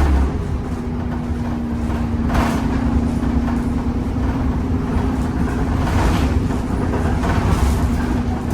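Temsa Avenue LF 12 city bus with a DAF engine and ZF gearbox running, a low rumble with a steady whine-like tone. The tone shifts lower just at the start and then holds, with a few brief noisy swells.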